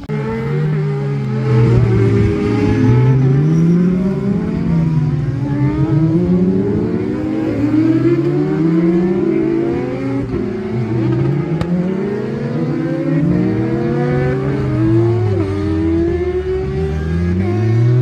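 Several racing car engines accelerating hard at once, their notes climbing and dropping again and again as they change up through the gears.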